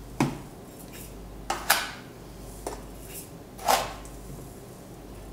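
A metal spoon clinking against a jar as raw cane sugar is spooned into a Thermomix mixing bowl: about five sharp clinks, the loudest a little past the middle.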